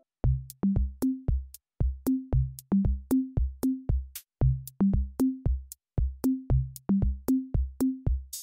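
Background music: a drum-machine beat with a kick drum and a short bass note on each beat, about two to three strokes a second, under crisp clicking hi-hats. Near the end a cymbal crash brings back sustained keyboard chords.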